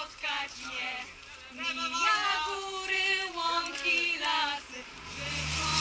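A group of young people's voices singing together as they walk, with some notes held. A low steady hum starts near the end.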